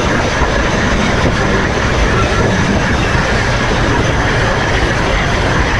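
Steel driving wheels of steam locomotive D&RGW 491 rolling on the rail in a steady rumble and grind, with the brake shoes pressing against the wheels as the independent brake holds the locomotive back on a downgrade.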